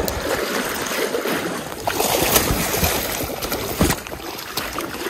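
Chinook salmon thrashing in shallow river water as it is netted: a rapid, irregular run of splashes and sloshing, loudest from about two seconds in, with a sharp splash near the end.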